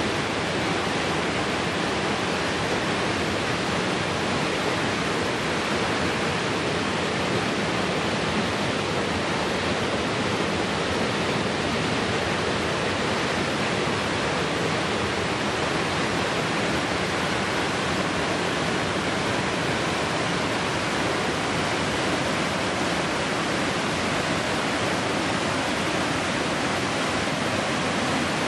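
Waterfall rushing steadily as whitewater cascades and churns over rock ledges.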